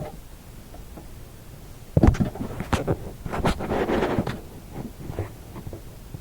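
Handling noise close to the microphone: a cluster of sharp knocks and rustling starting about two seconds in and lasting about two seconds.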